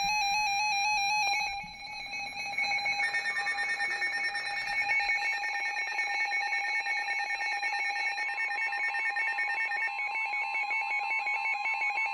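Weather alert radios going off for a severe thunderstorm warning: overlapping electronic alarm tones, dipping briefly about two seconds in, then continuing as rapid pulsing beeps over steady tones.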